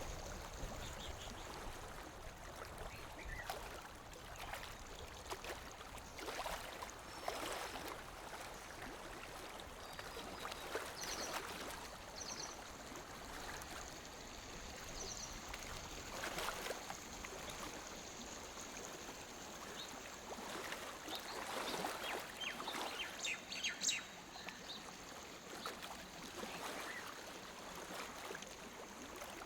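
Small waves lapping at a lake shore in irregular, uneven splashes, one a little louder near the end. A few faint bird chirps come through over the water.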